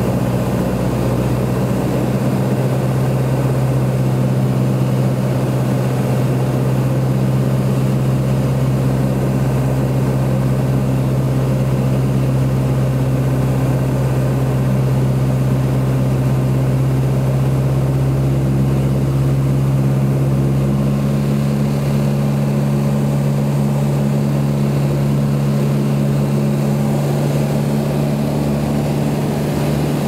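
Light aircraft's piston engine and propeller droning steadily, heard from inside the cabin during landing and roll-out. The engine note shifts about two-thirds of the way through as the deepest rumble drops away.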